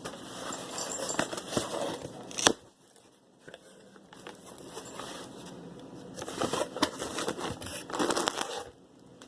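Packaging crinkling and rustling as a parcel is unpacked by hand, with a sharp snap about two and a half seconds in, a brief pause, then more crinkling.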